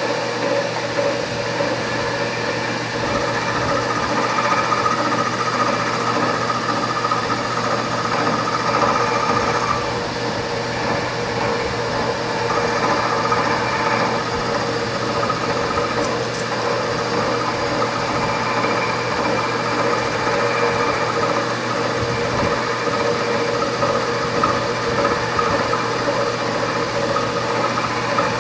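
Machine spindle running an insert boring bar as it cuts inside a small steam-engine cylinder bore, re-boring it to remove taper: a steady mechanical hum, with a higher whine from the cut that comes and goes.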